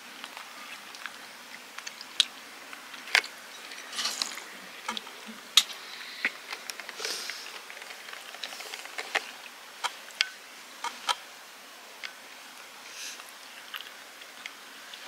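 A cat licking at a snack and at its own lips, taking only small licks: irregular soft wet clicks and smacks, a few of them sharper and louder.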